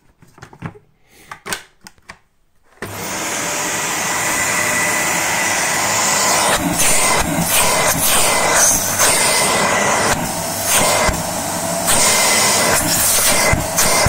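A Dyson cylinder vacuum cleaner, just cleared of a blockage, switched on about three seconds in after a few light handling clicks: the motor spins up and runs with a loud rush of air and a steady high whine, its level dipping briefly several times.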